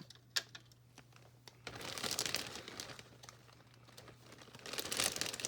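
Plastic crinkling in two spells, with light clicks, as small toy accessories are handled and set on a display.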